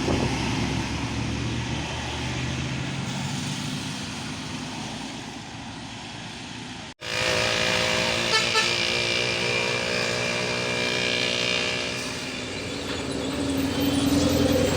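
Bus engine and road noise, then after a sudden cut a Basuri 'telolet' multi-tone bus horn plays a stepping tune for about five seconds, followed by a lower held horn tone near the end.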